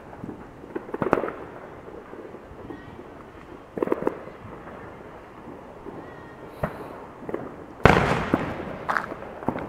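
Fireworks going off: scattered single bangs and pops, a short cluster about four seconds in, and the loudest bang near the end with a trailing rumble.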